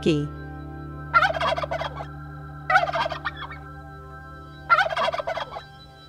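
Turkey gobbling three times, each gobble a rapid warbling rattle a little under a second long, spaced roughly every two seconds.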